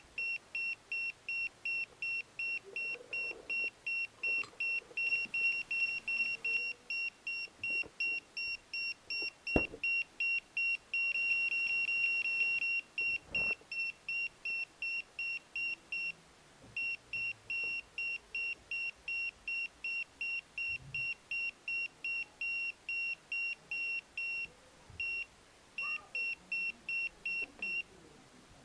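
Rapid high electronic beeping from the crashed radio-controlled seaplane, about two to three beeps a second. The beeps run together into one steady tone for a moment near the middle. Two sharp knocks sound in between.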